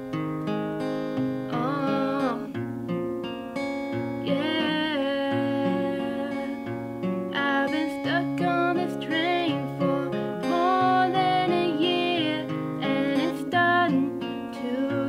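Young woman singing her own song, accompanying herself on a cutaway acoustic guitar, with the voice wavering on held notes.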